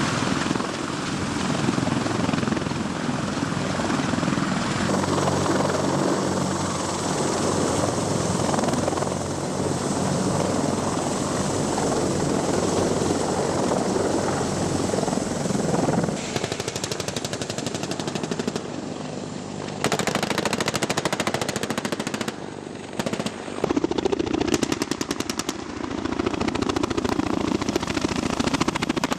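Heavy helicopter running with a steady thudding drone, joined in the second half by long stretches of rapid automatic gunfire.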